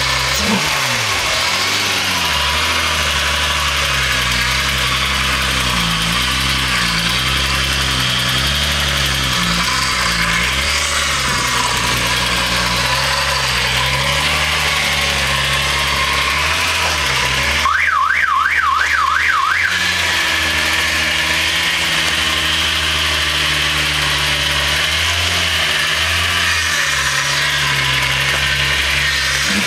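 A VR6 engine in a first-generation Volkswagen Golf running with a clattering noise, its speed rising and falling a little at times; the owner suspects the timing chains. The power steering pump is also noisy because it has not yet been topped up with fluid. Just past halfway, a tone warbles rapidly up and down for about two seconds.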